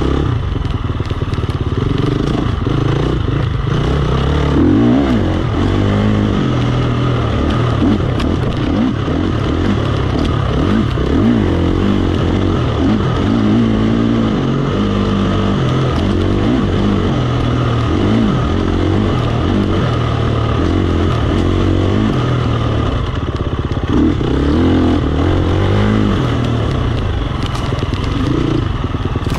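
KTM 350 XC-F dirt bike's single-cylinder four-stroke engine, heard up close from a handlebar mount, revving up and down again and again while riding a tight trail, with the clatter of the bike over rough ground.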